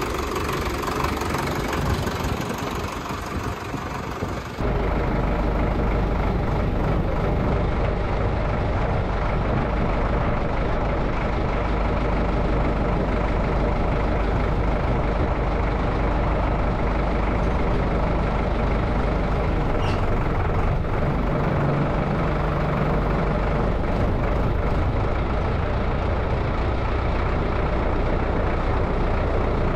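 Sonalika Worldtrac 60 RX tractor's diesel engine running steadily as the tractor is driven slowly. About four and a half seconds in it turns louder and deeper, heard close up from a camera on the bonnet.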